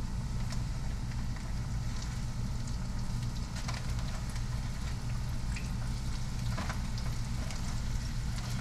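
Breaded channel catfish pieces frying in hot oil: a steady sizzle with scattered small crackles, over a steady low hum.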